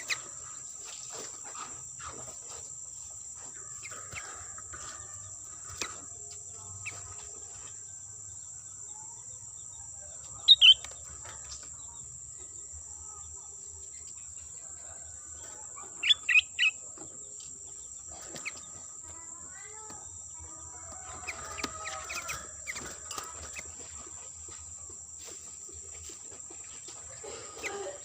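Sooty-headed bulbul (kutilang) calls, of the kind played or heard as a trapping lure. There are two loud sharp notes about ten seconds in, three more about six seconds later, and a burst of softer chattering calls near the end. A steady high insect drone runs underneath.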